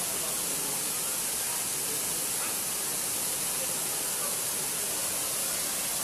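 Tall, narrow waterfall plunging into a rocky gorge: a steady rushing hiss.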